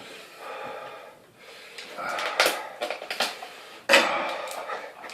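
Clicks, knocks and rustling as a plastic yoghurt pot and bowls are handled on a table, with a sharper knock a little before the end.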